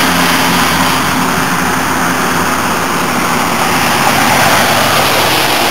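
Steady road and wind noise of a car driving on wet pavement, with a low engine hum that fades out about two seconds in.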